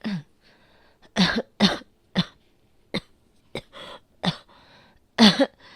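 A woman coughing repeatedly: about eight short coughs in uneven clusters, with faint breaths drawn between them. It is an asthmatic cough.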